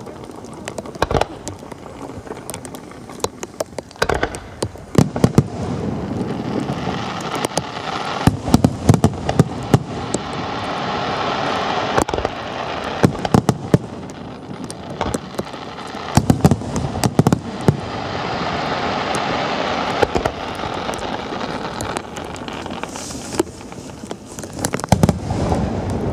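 Fireworks and firecrackers going off: many sharp bangs throughout, with two long stretches of dense crackling barrage.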